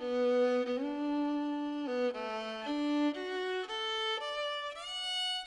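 Outro music: a slow melody of held notes, often two sounding at once, changing about once a second.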